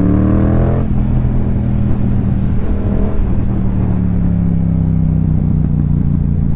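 Yamaha YZF-R7's parallel-twin engine through a Yoshimura R77 exhaust, revving up under acceleration until a gear change cuts it off about a second in. The engine then runs on at a steady pitch that eases slightly lower near the end.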